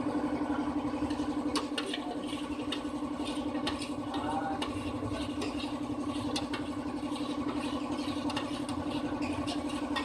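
A steady machine hum from a running engine or motor, with light scattered taps and clicks of a stick stirring paint in a metal can.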